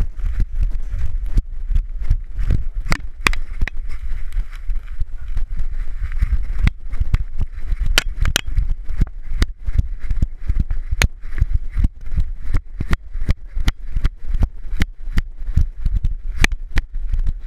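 A camera strapped to a dog's harness being jostled as the dog moves: a constant low rumble of rubbing and wind on the microphone, with sharp irregular knocks and clicks about two or three a second.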